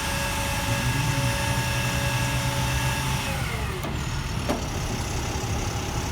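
Engine running at idle with a steady low rumble, overlaid by a high whine that drops in pitch and dies away a little past halfway through.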